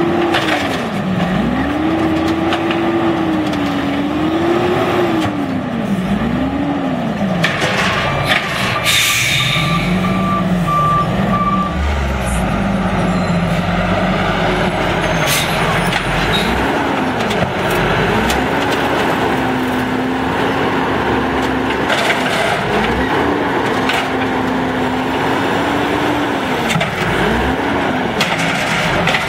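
Automated side-loader garbage truck at work, its engine revving up and down over and over as the hydraulic arm lifts and dumps a cart. A burst of air-brake hiss comes about a third of the way in, together with a short run of beeps.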